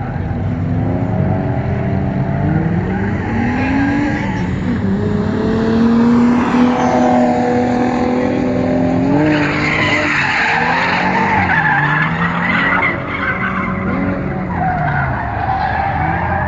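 Drift car's engine revving up and down as the car slides around the course, with tires screeching; the tire screech grows louder about halfway through.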